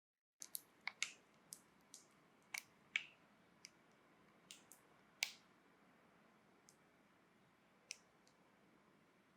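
Faint room tone with about a dozen irregular light clicks and taps, most of them in the first half, from small objects being handled.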